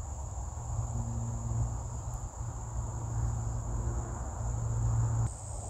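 Insects chirring in one steady, high, thin tone, which steps up slightly in pitch near the end, over a low rumble.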